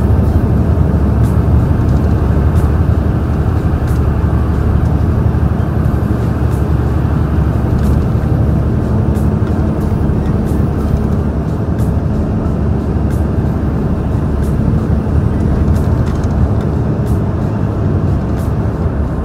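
Heavy truck's stock diesel engine pulling hard up a steep grade at full throttle, a steady low drone heard from inside the cab through a slightly open window.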